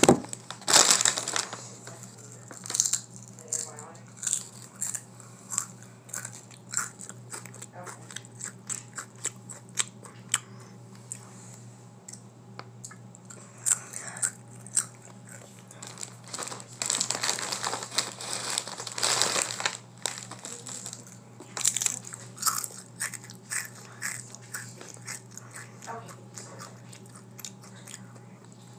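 Potato chips being bitten, crunched and chewed close to the microphone, with crisp clicks and crackles throughout. The chip bag crinkles loudly near the start and again for a few seconds past the middle as a hand reaches in. A steady low hum runs underneath.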